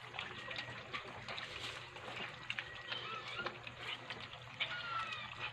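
German Shepherd puppies lapping and slurping milky food from a stainless steel bowl: quick, irregular wet laps and licks from several mouths at once.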